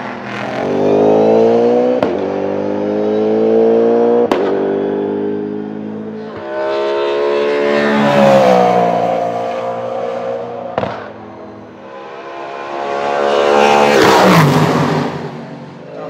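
V8 touring-car race engines accelerating hard past at full throttle, several cars one after another. The revs climb in long rising sweeps, broken by a few sharp cracks. Near the end a car rushes close by, and its pitch drops steeply as it passes.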